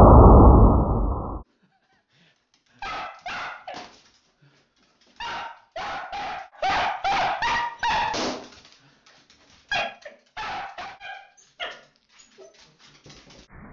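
Dachshund barking in quick, harsh volleys of short barks, excited by the balloons it is playing with. The first second or so is a loud, muffled noise that stops suddenly before the barking starts.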